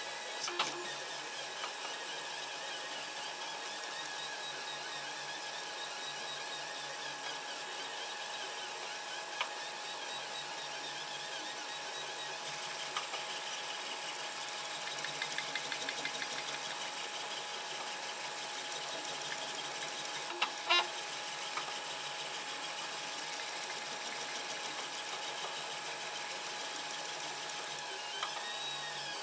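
3D printer at work: stepper motors whine in rising and falling tones as the print head moves between parts, over a steady hum. A few sharp clicks, the loudest about two-thirds of the way through.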